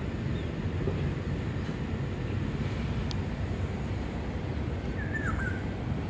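Steady low city background rumble, with a short, high bird chirp about five seconds in and a fainter one at the very start.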